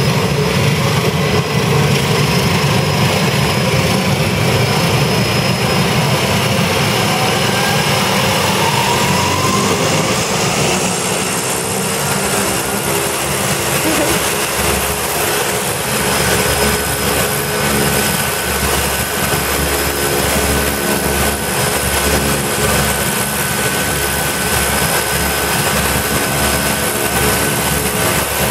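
Single-engine turboprop skydiving plane running on the ground: a steady turbine whine over the drone of the propeller. The sound changes about a third of the way in, with a stronger low pulsing drone after that.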